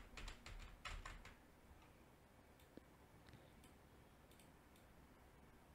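Faint typing on a computer keyboard: a quick run of keystrokes in about the first second and a half, then a few scattered faint clicks.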